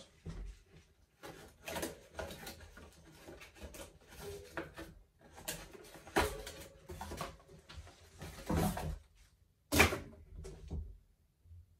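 Packaging being handled while a bicycle front wheel is unwrapped: irregular rustling and scraping with scattered knocks, the loudest a sharp knock near the end.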